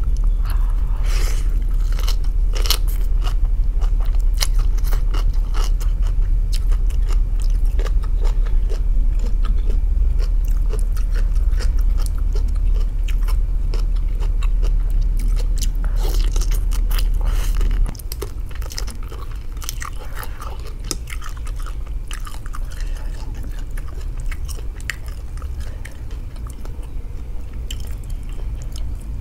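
Chewing and biting through a mouthful of rice noodles and raw cabbage leaves, with many crisp crunches from the cabbage coming in clusters. A steady low hum runs underneath and drops away about eighteen seconds in.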